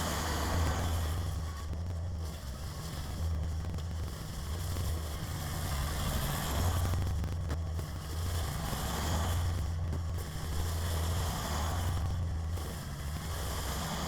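Kubota BX compact tractor's three-cylinder diesel engine running under a steady low hum, working the rear snow blower, with a rushing noise that swells and fades every few seconds.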